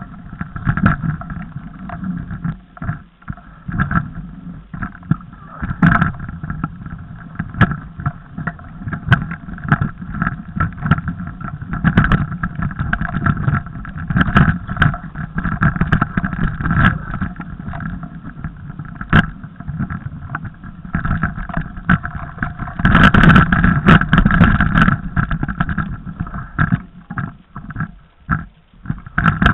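Mountain bike riding over a snowy forest trail: a continuous rumble of tyre and rattle noise with many irregular knocks and clicks from the bike jolting over rough ground, loudest for a couple of seconds about three quarters of the way through.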